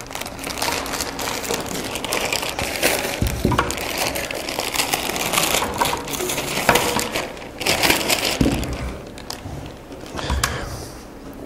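Clear plastic bag crinkling and rustling as it is handled and pulled open, with many small sharp crackles, thinning out after about eight seconds.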